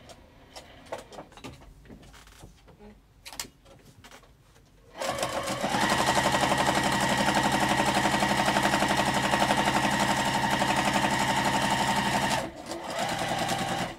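Sewing machine running at a steady speed, stitching a long straight seam down a folded strap strip. It starts about five seconds in after a few faint handling clicks, and stops about a second and a half before the end.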